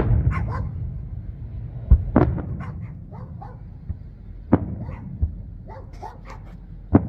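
Aerial fireworks shells bursting overhead: four loud, sharp bangs about two seconds apart, with fainter pops between them, over a low rumble.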